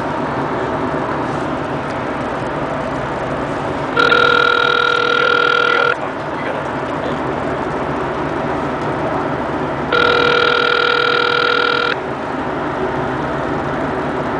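Telephone ringback tone heard through a BlackBerry's speakerphone as a call is placed: two steady rings about two seconds long, one about four seconds in and one about ten seconds in. It signals that the called phone is ringing and has not yet been answered.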